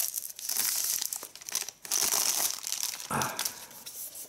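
Thin plastic shrink-wrap being peeled and crumpled off a Blu-ray digipak case, crackling in bursts.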